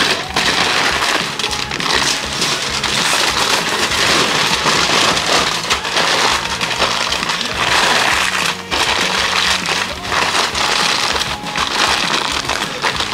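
Aluminium foil crinkling and crackling as it is folded and pressed into a tight wrap, over background music.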